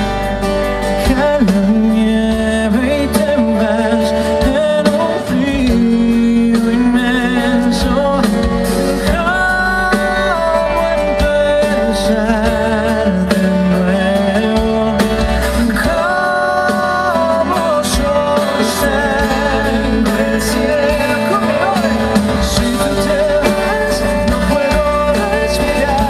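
Live band playing a slow romantic pop ballad, with a sung melody carried on vibrato over guitar and the band.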